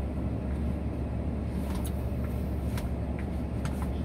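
Steady low rumble of a car, heard from inside the cabin, with a few faint clicks.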